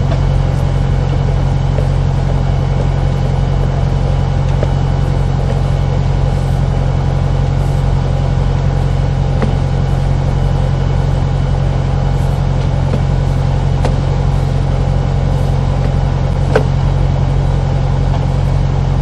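Sewer jetter's engine running steadily at constant speed: a low, even drone with a few faint steady higher tones. A single faint click comes near the end.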